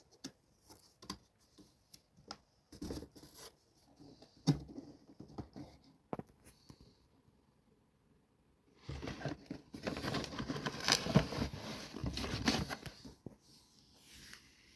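Handling noises: scattered clicks and taps, then about four seconds of dense rustling or crinkling starting around nine seconds in.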